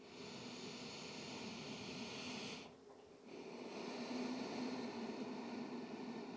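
A person breathing slowly and deeply through the nose: one long breath fades out about two and a half seconds in, and after a short pause the next long breath begins.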